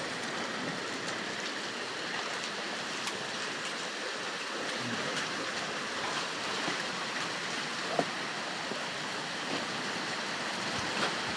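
Heavy rain pouring down during a thunderstorm, a steady, even hiss, with one small click about eight seconds in.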